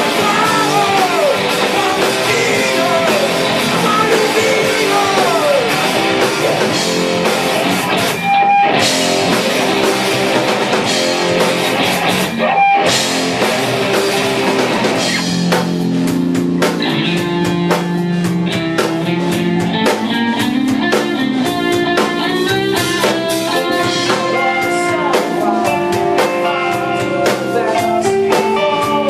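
Punk rock band playing live: electric guitar, bass and drum kit, loud and dense, with two brief stops about eight and twelve seconds in, after which the guitar settles into a steadier, more rhythmic riff over a low bass line.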